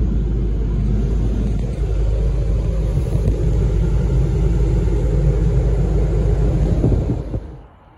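Automatic car wash machinery running around the car, heard from inside the closed cabin: a loud, steady rumble with a hiss over it that stops abruptly near the end.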